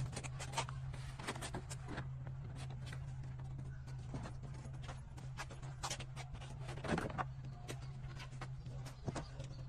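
Thin sheets of peeled wood veneer tapping and clattering as they are handled and stood against a rack: a scatter of sharp wooden clicks and knocks, the loudest about seven seconds in, over a steady low hum.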